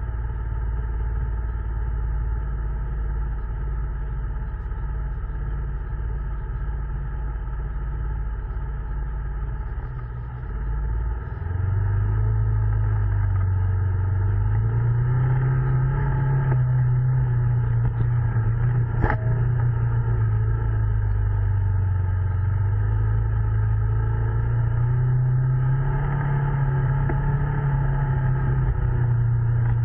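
Polaris ACE 900 side-by-side's twin-cylinder engine running under varying throttle on a rough trail. It gets louder about a third of the way in, then its pitch rises and eases back twice. One sharp knock comes a little under two thirds of the way through.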